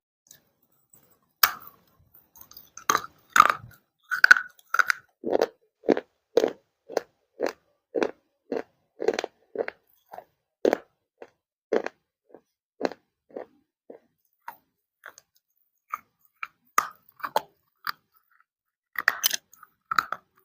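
Crunchy baked clay being bitten with a few sharp cracks, then chewed with a steady crunch about twice a second. The chewing thins out, and a few more sharp crunching bites come near the end.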